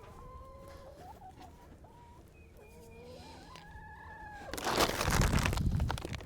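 Chickens clucking, with several short gliding calls and a couple of longer held calls. About four and a half seconds in, a loud rustling, scraping noise takes over for most of the rest.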